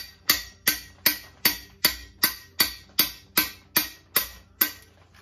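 A hammer taps steadily on pushrods run down the oil galley of a 350 small-block Chevy block, driving out the front oil galley plug. The strikes are sharp and ringing, about three a second, and they stop near the end.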